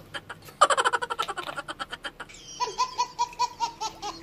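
Laughter: a quick run of pulsing laughs starts about half a second in and fades, then a second, steadier run of short evenly spaced laughs begins just past the middle.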